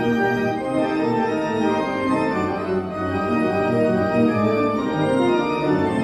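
Church organ playing full, sustained chords over a moving bass line.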